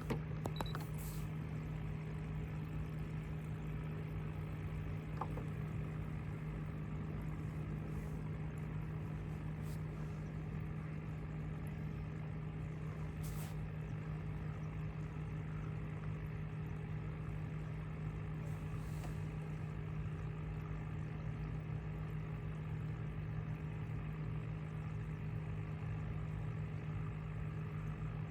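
A motor running steadily at constant speed, giving an even low hum with a few faint clicks.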